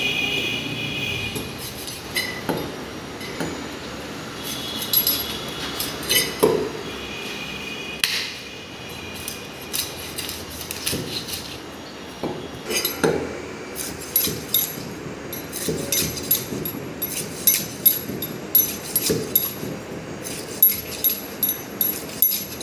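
A heavy curved knife chopping through a kingfish into a wooden log chopping block, cutting it into steaks. The knocks are sparse at first, then come in a quick, steady run through the second half.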